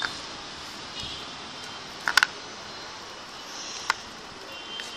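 Homemade slime being squeezed and kneaded by hand in a plastic bowl, giving a few short clicking, popping squelches over a steady hiss.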